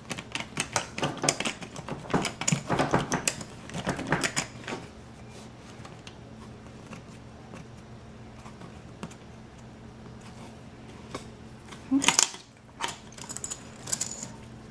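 Metal zipper pulls clicking and rattling against a suitcase's built-in combination lock as they are seated and locked in it. A quick run of small clicks fills the first five seconds, then a pause, then another cluster of clicks about twelve seconds in.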